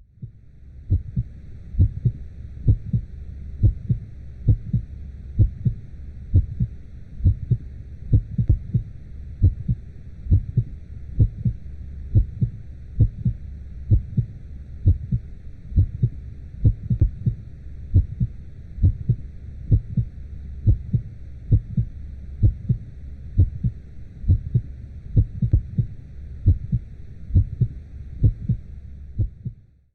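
Womb heartbeat sound: a steady lub-dub double beat, about one a second, over a continuous low rumble with a faint hiss above it.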